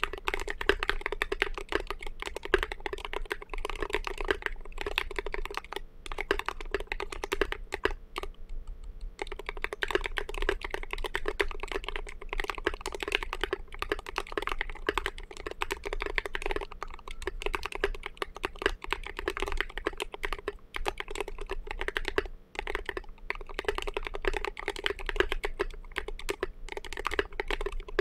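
RM.6 Gold mechanical keyboard with Thic Thock Marshmallow linear switches and Signature Plastics SA-profile Snow Cap keycaps being typed on in fast continuous runs of keystrokes, with a deep, thocky tone. Typing pauses briefly about eight seconds in.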